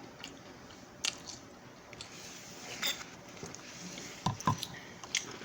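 A person eating Jin Ramen instant noodles: chewing with soft wet mouth sounds, and a few short sharp clicks, the loudest a pair about four and a half seconds in.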